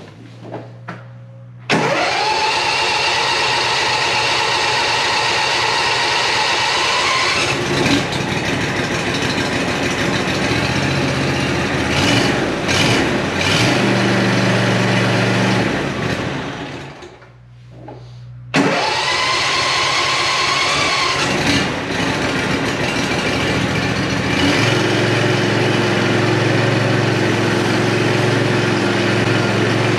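LawnBoss 6018 H ride-on mower's engine starting about two seconds in and running, its note shifting several times. It dies away around sixteen seconds, starts again at about eighteen and a half seconds, and runs on. This is a test run after the mower's belt pulleys were replaced.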